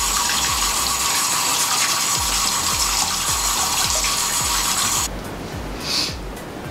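Bathroom sink tap running in a steady stream, shut off abruptly about five seconds in, over background music with a steady beat.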